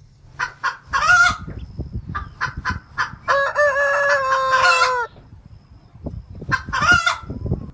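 Chickens giving short clucking calls, then a rooster crowing in one long call of nearly two seconds, about three seconds in, with a pitch that drops at the end. More short calls come near the end, over a low rumble.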